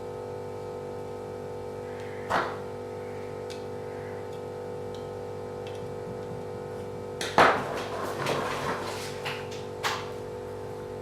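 Sharp clicks and light clatter of small hard parts being handled, one about two seconds in and a busier cluster in the second half, over a steady droning hum.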